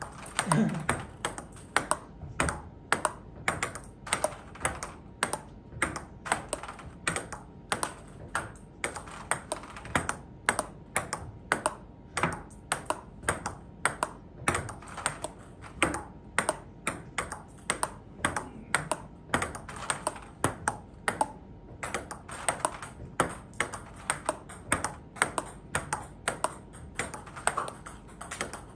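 Table tennis backhand rally: the ball clicking off the rubber bats and bouncing on the table in a steady, quick rhythm, a few hits a second.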